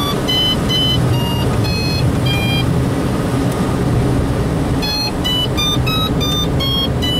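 Soaring variometer beeping: short electronic beeps at changing pitches, a few a second, which stop about two and a half seconds in and come back quicker about two seconds later, the audio tone that signals the aircraft is climbing. A steady low rumble of cockpit noise runs underneath.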